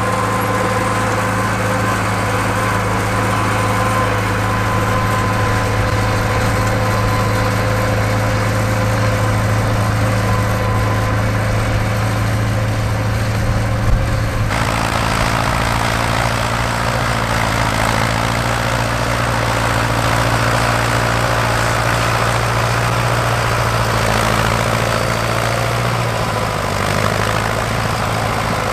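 Vintage tractor diesel engines running steadily: first a crawler tractor pulling a plough, then, after an abrupt change about halfway through, a Fordson Power Major running close by.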